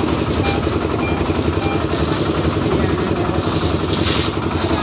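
Engine-driven concrete mixer running steadily as its drum churns the mix, with a rushing noise about three and a half seconds in.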